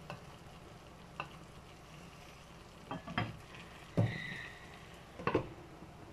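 Pork and vegetables sizzling in a frying pan with a steady hiss, broken by several sharp knocks and clinks of utensils against the pan. Near the end a glass lid is set on the pan.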